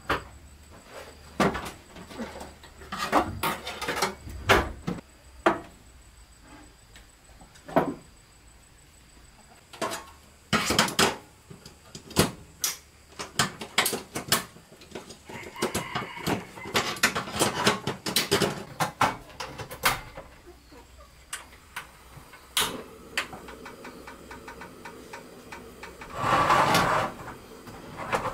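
Clicks and knocks of a portable butane gas stove being handled as a gas canister is fitted into it and its knob worked. Near the end comes a louder rushing burst of about a second and a half as the burner lights.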